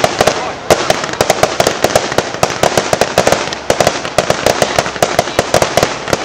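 Fireworks display: aerial shells bursting in a rapid, unbroken string of sharp bangs and crackles, several a second.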